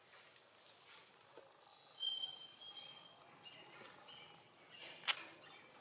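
Quiet outdoor ambience with birds chirping: a cluster of short, high whistled notes about two seconds in and a few fainter chirps after. A brief sharp sound comes about five seconds in.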